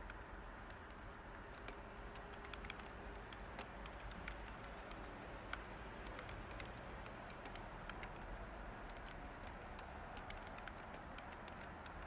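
Light, irregular computer keyboard typing over a steady background hiss of white noise.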